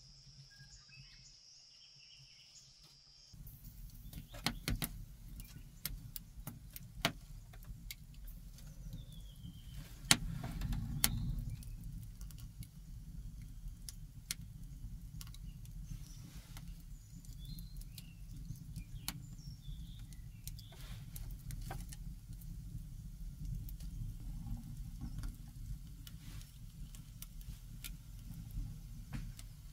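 A steady high insect trill for the first few seconds. After that, a wood fire burning in a clay hearth: scattered crackles and pops over a steady low rumble, busiest around ten seconds in.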